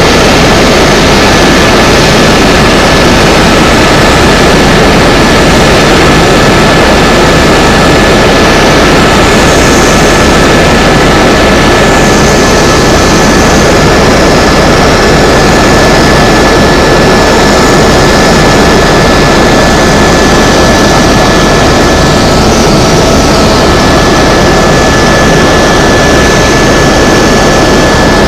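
Helicopter in flight, heard from inside the cabin: a loud, steady noise of turbine engine and rotor, with two steady high whining tones over it.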